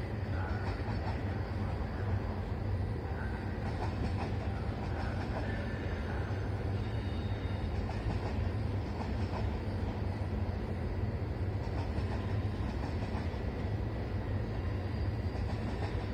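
Passenger train of coaches rolling past on the station tracks: a steady low rumble of wheels on rails that keeps up without a break.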